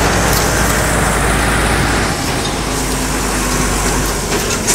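Deutz tractor's diesel engine running steadily while driving, heard from the cab, a constant low rumble with rattle and wind noise.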